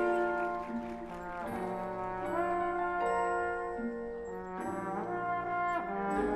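Drum and bugle corps hornline playing slow, sustained brass chords that shift to new chords about every second and a half, some with a short bend into the next.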